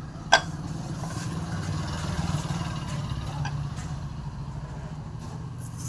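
Motorcycle engine idling steadily, with one sharp metallic click about a third of a second in and a few lighter ticks of tools or parts being handled.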